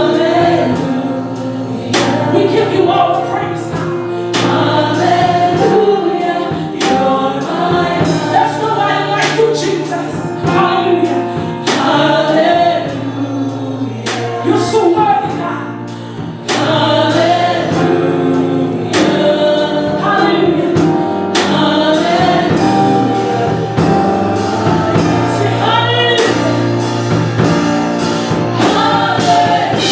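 Gospel choir singing with instrumental accompaniment and a regular drum beat.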